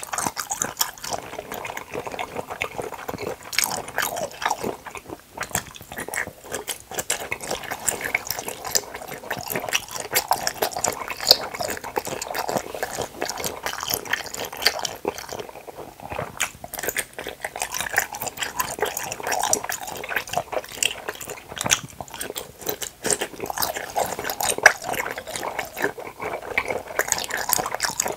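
Close-miked chewing of soft fruit cup jelly, a steady stream of small sticky mouth clicks.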